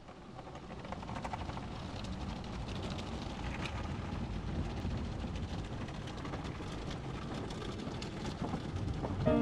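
Car wash running: a steady rumble of machinery and spraying water with scattered clatter, fading in over the first second.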